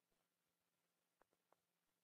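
Near silence, with a faint steady hum and three faint clicks a little past halfway.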